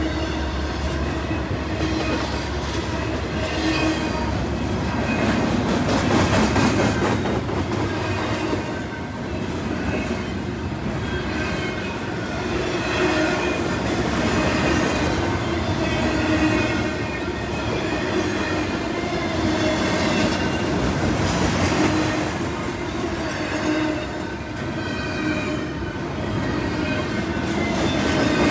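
Double-stack intermodal well cars rolling past, with steady ringing squeal tones from the wheels over the running noise. At the start, the deep rumble of a GE ES44AH mid-train helper locomotive fades as it moves away.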